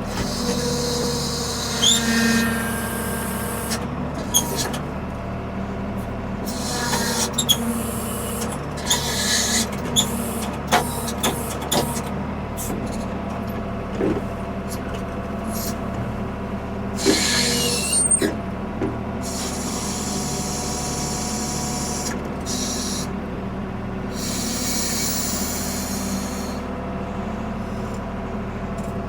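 1975 Ford 550 backhoe's diesel engine running steadily while it works, with intermittent high hissing and squealing and many scattered knocks and clanks.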